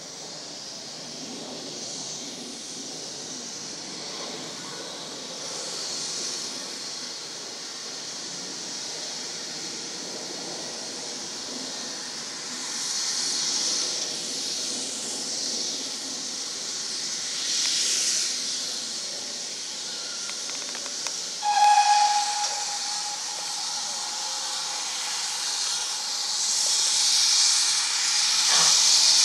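Steam locomotive hissing steam in slow swells that grow louder near the end, with one short, loud whistle blast about twenty seconds in.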